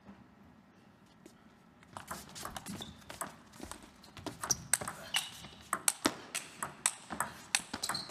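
Table tennis rally: the ball clicking off the bats and the table in quick succession, starting about two seconds in, with short squeaks of shoes on the court floor among the hits.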